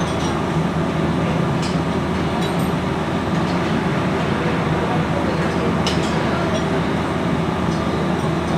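Steady, loud machinery drone with a few light metal clinks.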